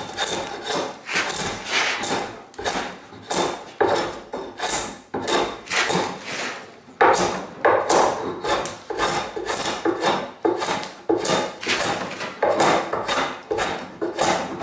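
A hand tool working wood in repeated strokes, about two a second, each a short rasping scrape. The tool is an old one that is probably not as sharp as it could be.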